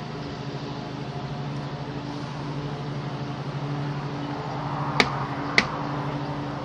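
Two sharp clacks of hard plastic parts of a Bee Brief plastic nuc box being handled, about half a second apart, over a steady low hum.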